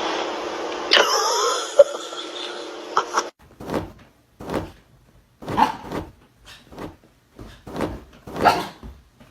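A dog making short sounds about once a second, after a steady hiss that cuts off about three seconds in.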